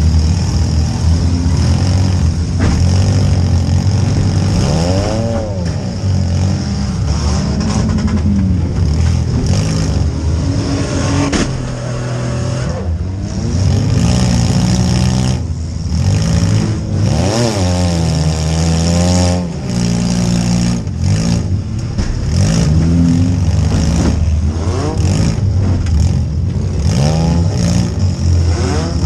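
Compact demolition derby car's engine revving up and down repeatedly, heard from inside the stripped cabin next to the engine, with frequent bangs and clatter of collisions with other cars.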